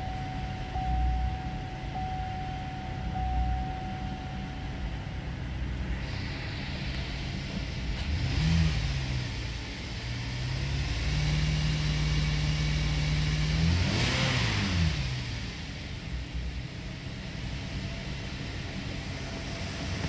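A 2010 Buick Enclave's 3.6-litre V6 running: it idles, is revved briefly about eight seconds in, held at a higher speed for a couple of seconds, then blipped again and let fall back to idle. A dashboard warning chime pings about once a second for the first few seconds.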